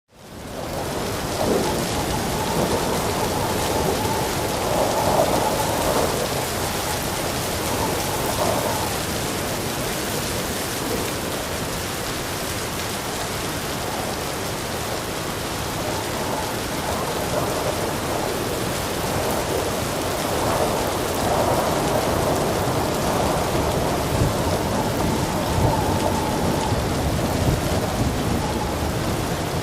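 Heavy rain pouring steadily, with rolls of thunder swelling and fading over it. The sound fades in at the very start.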